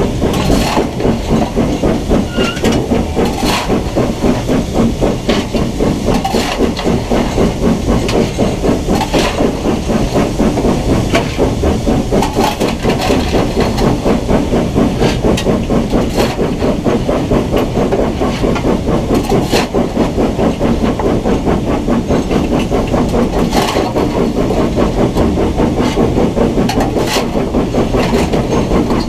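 BR Standard Class 9F 2-10-0 steam locomotive running under steam, heard close from the side of its boiler: a fast, even rhythm of exhaust beats with steady hiss, and sharp clicks now and then.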